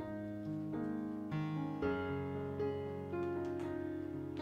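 Background piano music, sustained notes shifting every half second or so.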